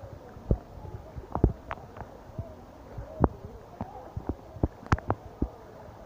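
Irregular low thumps and knocks on a phone's microphone, several a second apart, over a steady faint wash of rain and flowing floodwater.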